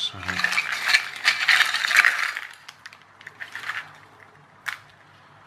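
Thin clear plastic bag crinkling as it is handled, then a few sharp clicks as the lid of a clear plastic food tub is pressed shut.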